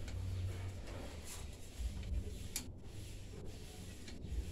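Faint clicks and light scraping of a coaxial cable connector being handled and screwed onto a TV antenna's connector box, over a low rumble.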